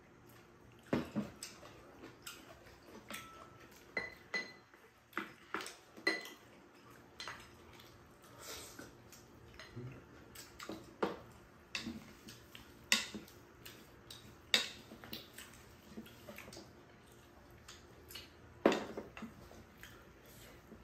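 Spoons and chopsticks clinking and scraping against ceramic and stainless steel bowls while eating: irregular sharp clinks, a few ringing briefly.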